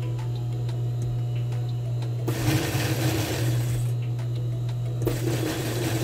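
Industrial sewing machine running with a steady motor hum, with two louder stretches of noise, one about two seconds in and one near the end, as the skirt fabric is worked under the needle.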